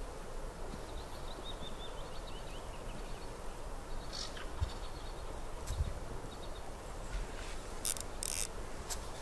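Outdoor ambience: a steady, even background rush with a small bird giving short series of high chirps, once in the first few seconds and again around the middle. A few brief sharp clicks near the end.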